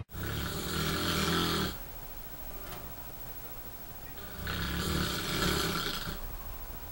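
A man snoring: two long snores, each lasting about a second and a half, with a quiet gap of about three seconds between them.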